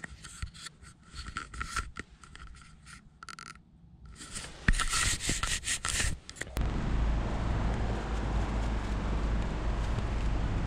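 Scraping, rustling handling noise in a truck's cab, faint at first and louder about four and a half seconds in. About six and a half seconds in, it cuts abruptly to a steady outdoor background noise with a low rumble.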